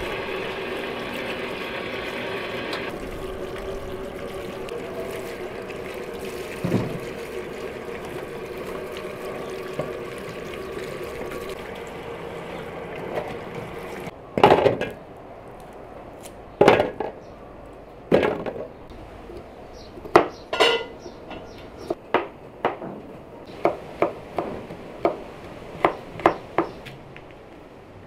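Tap water running steadily onto peppers in a stainless steel colander for about the first half. The water then stops, followed by scattered sharp clinks and knocks against metal. Near the end there is a run of quick, evenly spaced knife taps as okra is trimmed.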